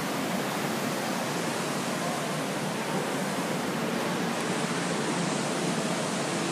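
Steady, even rushing of ocean surf breaking on the beach below, mixed with wind on the microphone.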